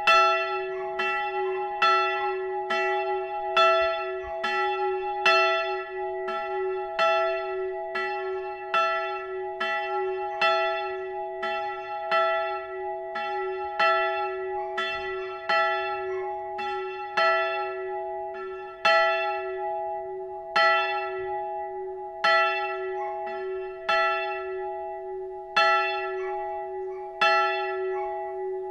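A single swinging church bell rings in a steady rhythm of strokes, its hum sounding on between them. This is the one-bell pre-ringing that calls to a Lutheran service half an hour before it begins.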